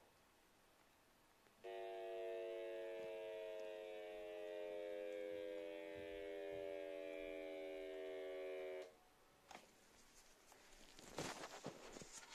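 A steady electronic drone of several tones held together, starting and stopping abruptly after about seven seconds and sinking a little in pitch. Faint paper rustling and handling clicks follow near the end.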